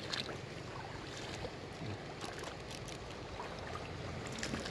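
Shallow stream water running steadily over stones, with a few faint clicks.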